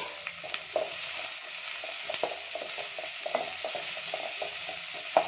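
Sliced onions and green chillies sizzling in hot groundnut oil in a metal kadai, with a metal spatula scraping and knocking against the pan as they are stirred.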